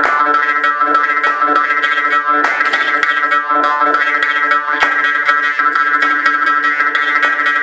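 Morsing, the South Indian jaw harp, played in a fast rhythmic pattern: a steady twanging drone on one pitch with rapid plucked strokes many times a second.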